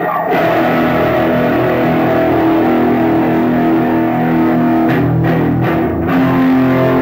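Punk rock band playing live: loud, distorted electric guitar chords held over bass guitar, changing to a new chord about six seconds in.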